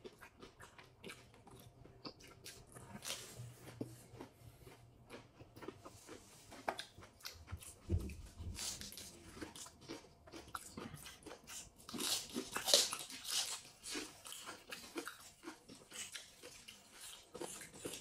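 Close-up eating sounds: chewing and biting, with crisp crunches of fresh lettuce leaves and small mouth clicks and smacks. The crunching is loudest about twelve seconds in.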